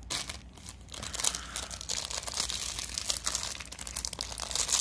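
Clear plastic packaging bag crinkling and crackling irregularly as a hand grips and pulls at it to get it open.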